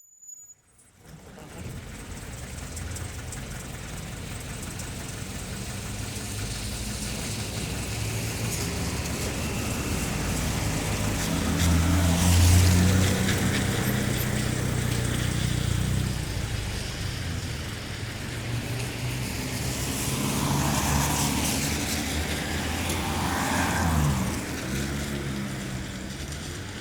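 Town traffic on a wet road: cars passing one after another, tyres hissing on the wet surface over the low running of their engines. It fades in at the start, and the loudest pass comes about halfway through, with two more passes swelling up in the last third.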